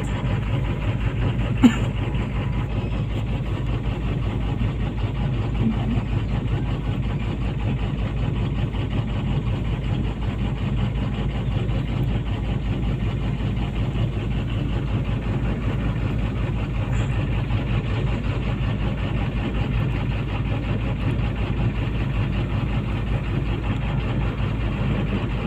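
Komatsu PC200-8 excavator's six-cylinder common-rail diesel idling steadily while one cylinder is cut out for a cylinder cut-out test. There is a single short click a couple of seconds in.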